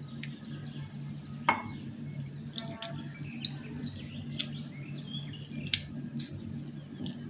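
Light clinks and taps of glassware and utensils as juice is pressed out of the stuffed fruit into a glass, with scattered sharp clicks. Birds chirp in the background, and a low steady hum runs underneath.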